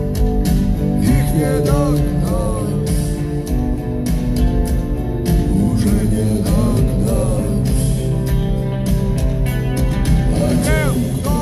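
Rock band playing live in an arena, heard from the audience: electric guitars, bass and drums, with a lead melody that wavers and bends in pitch.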